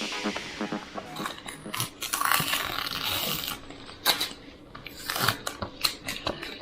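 Scattered light clicks and knocks of small objects being handled, as music fades out at the start.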